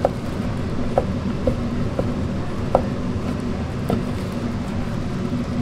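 Kitchen knife chopping through cooked liver and offal onto a wooden cutting board: about six short knocks, half a second to a second apart, with the last near the four-second mark. Under them runs a steady low background hum.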